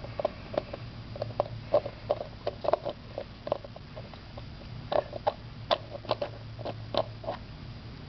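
Lid of a 3D-printed plastic puzzle box being twisted and slid through its internal maze: irregular small clicks and knocks of plastic on plastic, about two or three a second, over a low steady hum.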